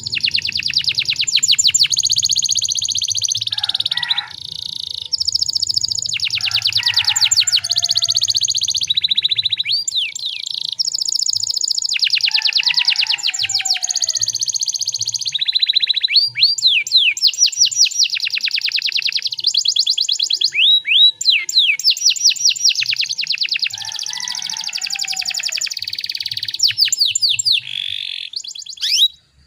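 Domestic canary singing a long, continuous song of rapid trills and rolls, with a new phrase every second or two and runs of fast rising whistled notes.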